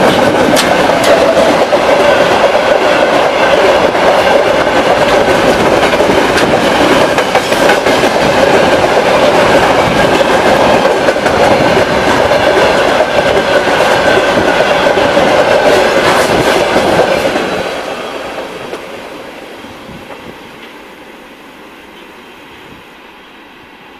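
Freight train of open gondola wagons rolling past close by, its wheels running loud and steady on the rails. About 17 seconds in the last wagon goes by and the sound fades away.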